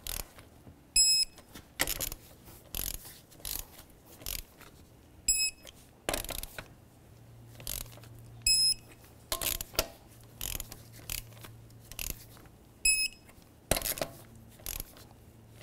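Electronic torque wrench beeping each time a lug nut reaches its set torque of 115 foot-pounds: four short high beeps a few seconds apart. Between them the wrench's ratchet clicks and the socket clinks onto the nuts.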